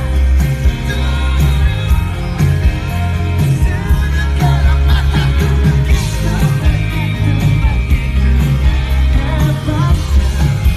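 Indonesian pop-rock song by a full band, with a male lead voice singing over drums, bass and guitar.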